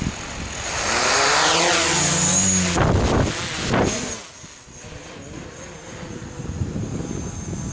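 FPV quadcopter's motors and propellers spinning up loud for about three seconds. Near the middle the sound drops and settles into a steadier, quieter hover hum with a thin high whine.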